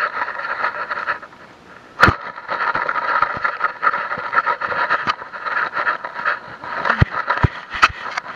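Rubbing and scraping noise from an EKEN H9 action camera hung on a moving dog's collar, with sharp knocks from the camera being jostled, the loudest about two seconds in and a cluster around seven seconds in.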